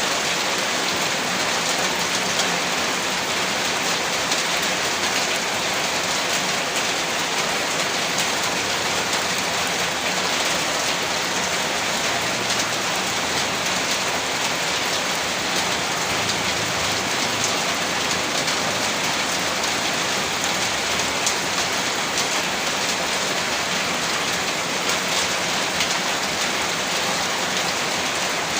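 Steady rain falling, a dense, even hiss with faint scattered drop ticks.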